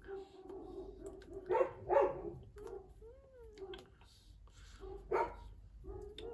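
Dog barking: three loud barks, two close together a second and a half to two seconds in and one about five seconds in, with quieter whining between.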